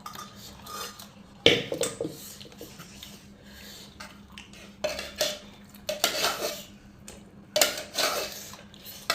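Cutlery and dishes clinking and clattering in irregular knocks as a meal is eaten.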